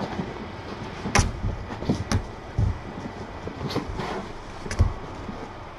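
Kittens scampering and pouncing in play, making scattered thumps and knocks, about six in all, over a steady hiss.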